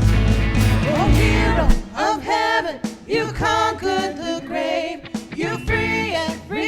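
Church worship band playing, with drums and bass driving for the first second or two and then dropping out, leaving sung voices over light accompaniment.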